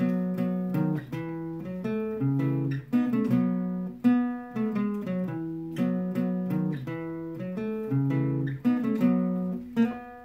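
Guitar playing a rhythm pattern of plucked notes over a moving bass line, in a phrase that repeats about every four seconds.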